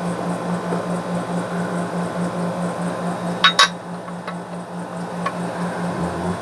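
Light metal-on-metal taps while a bearing race is started into a Corvair rear end housing: two sharp clinks close together about halfway in, then two fainter ticks. A steady low hum that throbs rapidly runs underneath.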